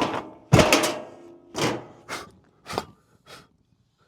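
Carb-cleaner vapour lighting off inside a small wood chipper tire: a loud whump about half a second in as the flash blows the tire back onto its bead, followed by several shorter, fading bursts.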